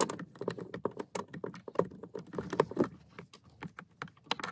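Quick, irregular clicks and scrapes of a T20 Torx driver turning a screw out of the plastic steering-column shroud.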